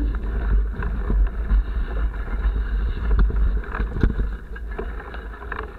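Mountain bike ride on a wet, muddy trail, heard from a camera on the bike or helmet: wind buffets the microphone over the tyres running through mud and water, with frequent sharp knocks and rattles from the bike over bumps. It grows quieter over the last second or so as the ride eases onto a smoother track.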